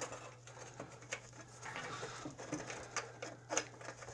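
Faint scattered clicks and light taps of bolts being started by hand into a snowblower's recoil starter housing, over a low steady hum.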